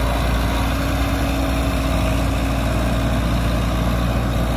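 Tractor diesel engine running at a steady speed, loud and even, with no revving.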